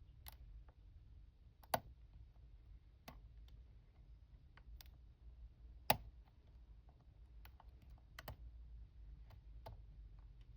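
Faint, scattered clicks of a hook pick and tension wrench working the pins of an aluminium-bodied Master Lock padlock, with two sharper clicks about two and six seconds in.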